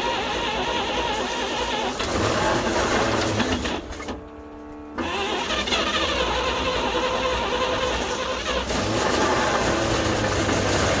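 Early-1950s GMC truck engine cranking over on its starter in a first attempt to start it after decades parked, the engine having only just been freed from seizure. The cranking stops briefly about four seconds in, then resumes for several more seconds.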